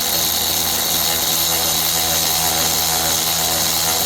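Handheld power tool with a 13 mm socket running steadily, spinning cylinder head bolts down at low torque.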